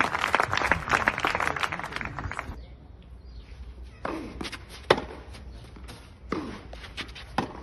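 Clapping from a small crowd, thick for the first two seconds and then dying away. After a break, a tennis ball is struck back and forth in a rally on a clay court, with four sharp racket hits about a second apart.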